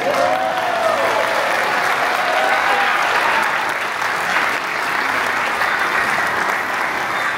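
Audience applauding, with a few voices calling out over the clapping in the first few seconds.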